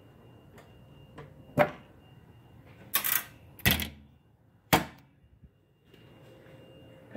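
A handful of sharp knocks and clicks, spaced about a second apart, with a louder knock at the very end.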